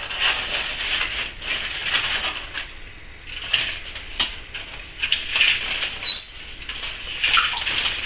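Timneh African grey parrot making a string of breathy hissing sounds, about one a second, with a short sharp high whistle about six seconds in, the loudest sound.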